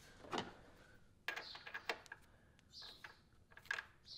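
Light metallic clicks and taps as the VANOS filter plug is handled and threaded by hand into the VANOS unit of a BMW S54 engine: a few sharp clicks, the loudest about two seconds in and near the end.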